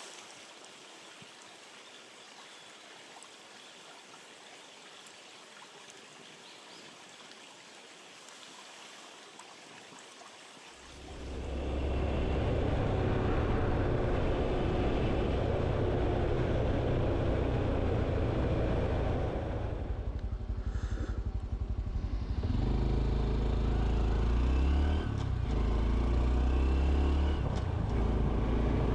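Faint steady outdoor hiss, then about eleven seconds in a Honda CT125 Hunter Cub's single-cylinder engine running loudly under riding. Its note shifts up and down a few times in the second half as the throttle and gears change.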